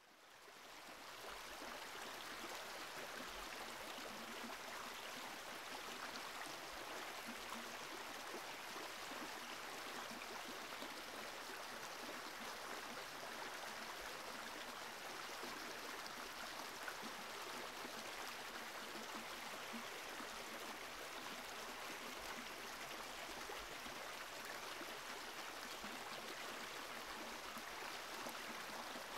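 Steady rushing noise of flowing water, fading in over the first second and then holding even.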